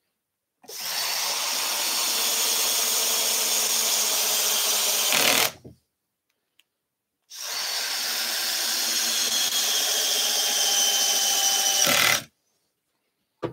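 Cordless drill-driver driving two screws into a pine frame, each run lasting about five seconds, steady and ending in a brief low knock.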